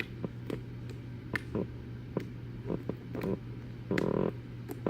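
Creamy mint slime being poked and squished by fingers: a scattering of soft, quiet clicks and small pops, with a brief buzzy squelch about four seconds in. The slime doesn't poke loudly.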